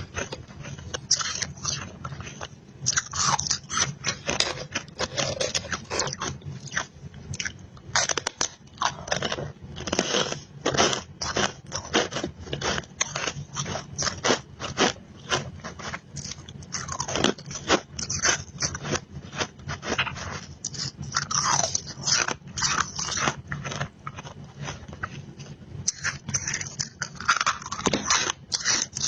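Close-up crunching and chewing of powdery freezer frost ice: a dense, irregular run of sharp crunches, several a second.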